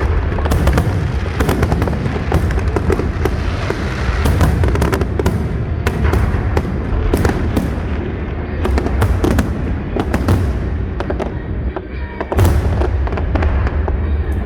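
Fireworks display: a dense run of sharp cracks and crackling shell bursts over a constant deep booming rumble, with a brief lull and then a loud burst about twelve seconds in.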